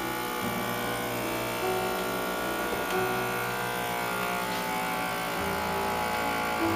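Vacuum sealer's small pump motor running steadily as it draws the air out of the bag, with background music over it.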